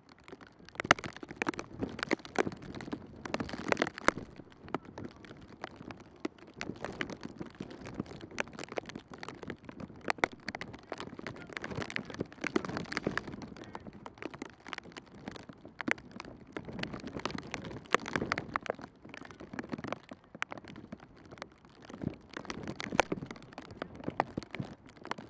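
Football training-ground ambience: scattered, irregular sharp thuds of footballs being kicked on a grass pitch.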